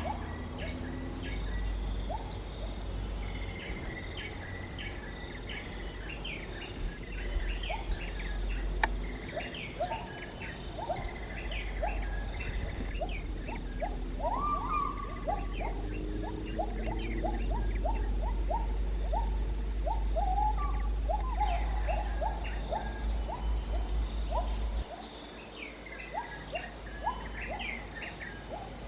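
Tropical forest ambience: a steady high-pitched insect drone under many short, rising chirping bird calls. A low rumble underneath drops away near the end.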